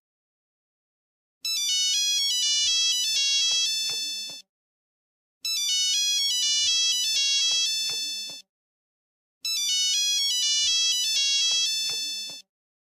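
Old Nokia mobile phone ringtone: a short electronic melody played three times over, each run about three seconds long with a second of silence between. The last run stops shortly before the end.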